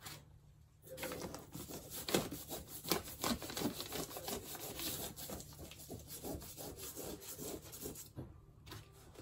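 A hand rubbing and pressing loose paper wallpaper flat against a wall, smoothing down a cracked section freshly glued with liquid nails. It is a run of scraping, rustling strokes that starts about a second in and stops about a second before the end.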